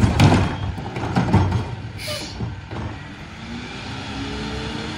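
Freightliner Econic rear-loader garbage truck: a couple of heavy clanks as the emptied cart comes off the McNeilus tipper, a short air-brake hiss about two seconds in, then the diesel engine slowly rising in pitch as the truck starts to pull away.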